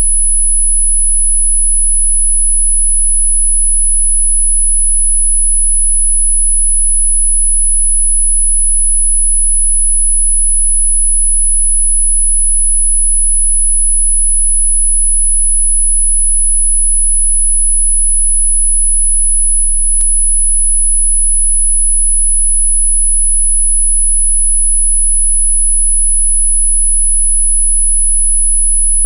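Steady, very high-pitched pure electronic tone, presented as a healing frequency for hiccups. It holds one pitch without change, with a single faint click about twenty seconds in.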